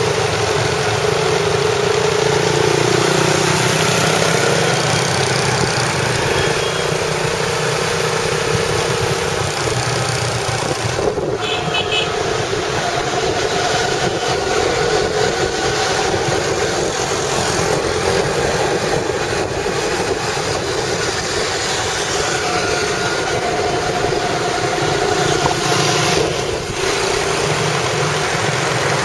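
Riding on a motorbike in city traffic: a small motorbike engine running steadily under a constant rush of air and road noise, with other scooters and motorbikes around.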